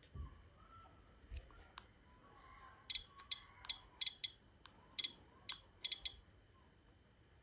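Soft handling thumps, then a quick run of about a dozen light, sharp clicks over a few seconds as a DJI Osmo Pocket 3 gimbal camera is handled and its touchscreen is swiped through the language menu during first setup.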